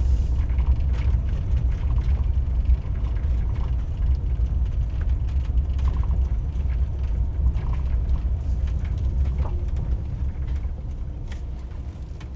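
Inside a slowly moving vehicle on a gravel campground road: a steady low rumble of engine and tyres, with scattered small rattles and clicks, easing slightly near the end.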